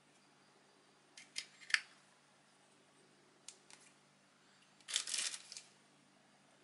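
Handling a plastic camera lens cleaning pen: a few sharp plastic clicks as its parts are worked and the cap comes off, then a brief crinkle of a clear plastic zip bag about five seconds in.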